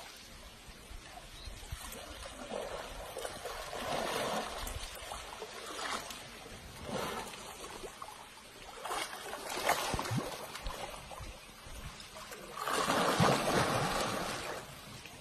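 Water sloshing and splashing as a baby elephant rolls and thrashes in a muddy river, coming in surges every couple of seconds, with the biggest splashing near the end.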